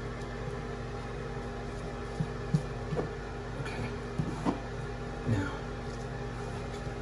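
Fingers pressing and smoothing wallpaper into an inside corner, a few faint short taps and rustles over a steady low hum.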